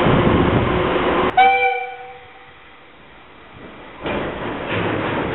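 Electric commuter train running, then a short train horn blast about a second and a half in that dies away within half a second. After a quieter stretch, steady train noise returns about four seconds in.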